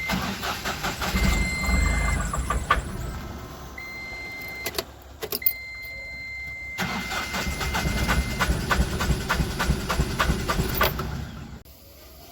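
Ashok Leyland Bada Dost diesel engine cranking and catching in two stretches, about three seconds and then about five seconds, with a steady high beeping tone coming and going. The engine is being started after a no-start that the mechanic puts down to an air lock in the fuel system.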